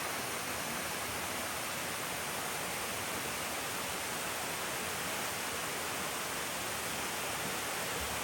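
Waterfall and spring water rushing, a steady, even hiss that does not change.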